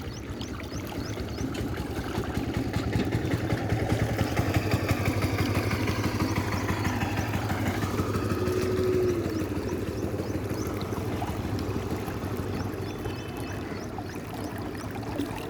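Water rushing steadily, a continuous wash with a deep low rumble underneath.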